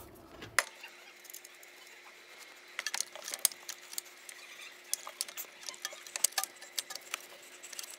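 Scattered light clicks and taps of an aluminium front lower control arm being handled and worked into position against the car's subframe, most of them from about three seconds in.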